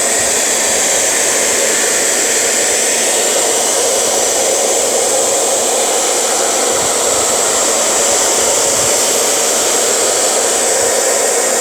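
Handheld hair dryer running steadily, blowing hot air to soften the adhesive on a smartphone's glass.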